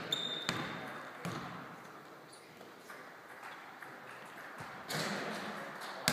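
A basketball bouncing on a hardwood gym floor in a large echoing sports hall: three dribbles in the first second and a half, then after a quiet stretch the ball drops back onto the floor with a sharp bounce near the end.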